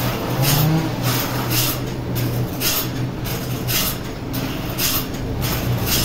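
Large band-saw mill and its log carriage running: a steady low motor hum that rises and falls in pitch at times, with a regular hissing stroke about twice a second.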